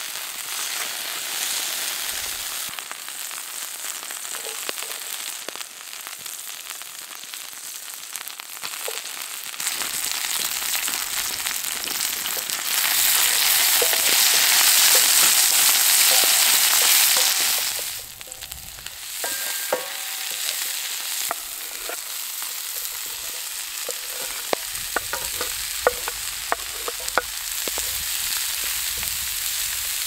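Food sizzling as it fries in a hot pan. The frying is loudest for several seconds around the middle, then drops off suddenly, with many sharp ticks and taps through the last third.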